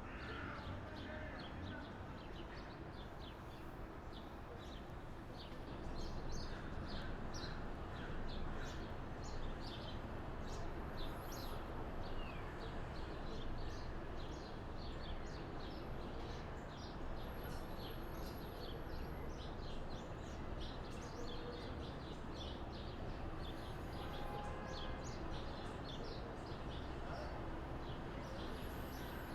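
Outdoor city ambience: a steady background hum with many short, rapid bird chirps throughout.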